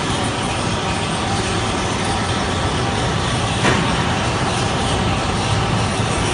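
Steady, loud rumbling roar of steel roller coaster trains running on their track, echoing through a large indoor amusement-park hall. A sharp click comes about three and a half seconds in.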